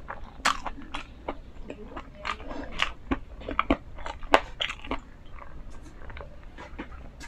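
Mouth sounds of a person eating close to an ASMR microphone: irregular wet clicks, smacks and crunches from chewing and finger licking. Then swallowing sounds as she drinks from a glass.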